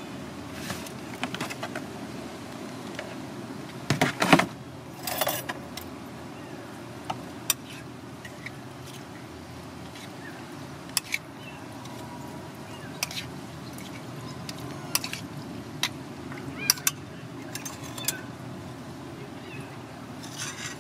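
Scattered clinks and taps of a spoon and food against a ceramic plate as a plate of ketoprak is assembled and mixed, with a louder clatter about four seconds in, over a steady hum of street traffic.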